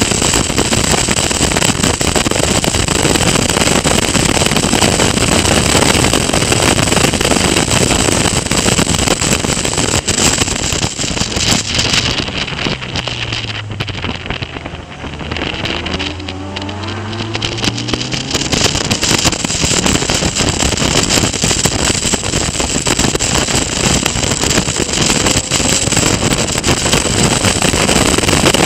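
Onboard sound of a Caterham Academy race car (Ford Sigma 1.6 four-cylinder) at racing speed, engine and wind noise buffeting the open car. About halfway through, the noise drops and the engine note falls as the car slows for a tight hairpin. The engine note then climbs again as it accelerates out, and the wind noise builds back up.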